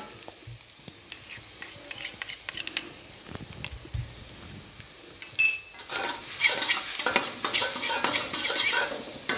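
Minced garlic and ginger frying in sesame oil in a stainless steel wok, stirred with a steel spatula that scrapes and taps the pan. Scattered taps over faint sizzling for the first half, one ringing metallic clang about five seconds in, then louder, steady sizzling and scraping.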